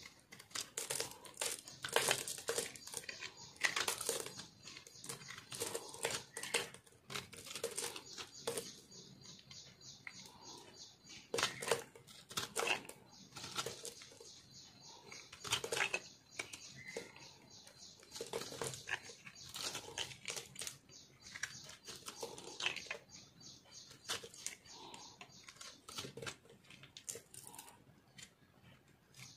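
Snap-off utility knife blade scraping and carving a dry, crumbly ball of re-molded soap, a quick irregular run of crunchy scrapes with bits of soap crumbling off.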